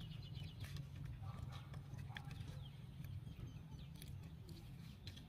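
A monkey eating an omelet off a plate: faint scattered clicks and small smacking and handling sounds over a steady low hum.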